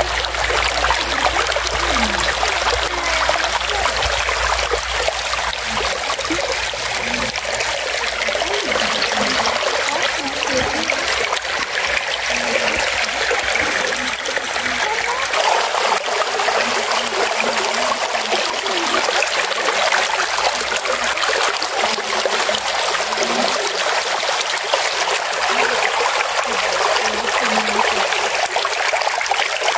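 Shallow, fast stream rushing and babbling over rocks and pebbles, heard close to the water, steady throughout.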